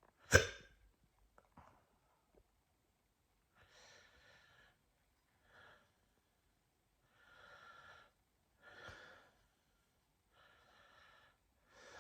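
A person hiccups once, sharply and loudly, about half a second in. Then come about six quiet, breathy breaths spread over the next ten seconds.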